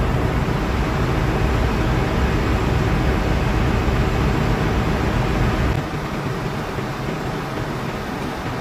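Ship's reefer compressor running during pump-down, a steady machinery drone with a strong low hum. About six seconds in the low hum falls away and the noise drops to a lighter steady hiss.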